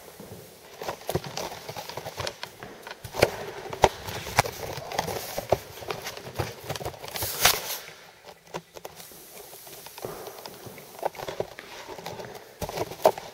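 Irregular knocks, scuffs and footsteps on a hardwood floor as a pad-covered T-bar applicator is worked across it spreading floor finish, with one brief louder swish about seven seconds in.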